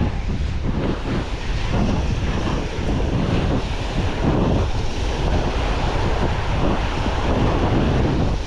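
Wind buffeting the microphone over a steady wash of waves breaking on a sandy beach.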